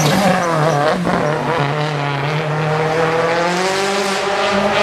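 Citroën C4 WRC rally car's turbocharged four-cylinder engine driven hard past, its pitch repeatedly dropping and climbing with throttle and gear changes.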